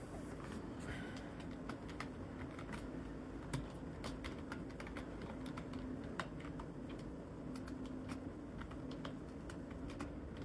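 Irregular light clicks and taps, several a second, over a steady low hum; two sharper clicks stand out, about a third and about two-thirds of the way through.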